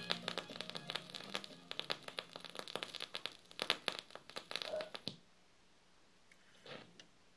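Vinyl surface noise from a KLH Model 11 phonograph's stylus riding the record after the music has ended: a dense run of crackles and pops. It cuts off suddenly about five seconds in as the tonearm is lifted, and a faint knock follows near the end.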